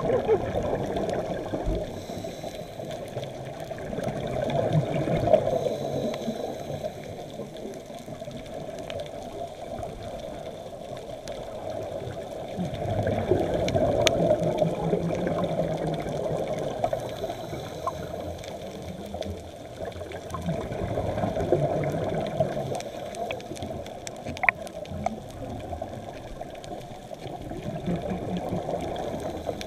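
Scuba diver's breathing heard underwater: bubbling exhalations from the regulator swell up about every eight seconds over a low, steady gurgle, with a few faint clicks.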